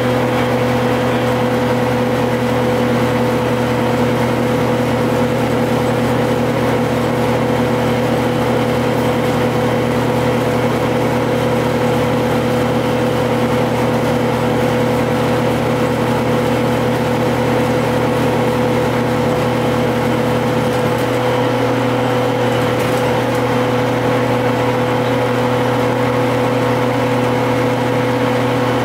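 GM TDH-5303 transit bus's Detroit Diesel two-stroke diesel engine running at an even engine speed with a steady pitch, the lower tones shifting slightly about three-quarters of the way through.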